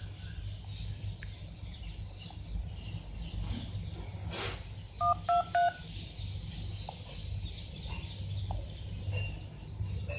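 Three short keypad tones from a OnePlus 3's phone dialer, a third of a second apart about halfway through, as the digits 1, 2, 3 are pressed. Each tone pairs a steady lower note with a higher one that steps up from press to press. A short swish comes a little before them, and a low steady hum runs underneath.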